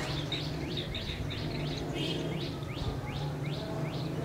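Asian green bee-eater calling: a fast run of short rising chirps, about three a second, over a low steady hum.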